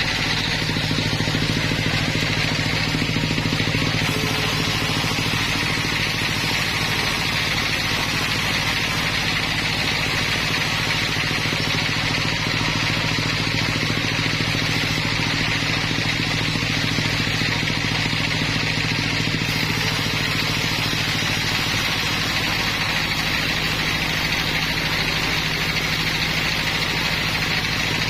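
Sawmill machinery running steadily, an engine-driven hum that holds an even speed with no sign of a cut.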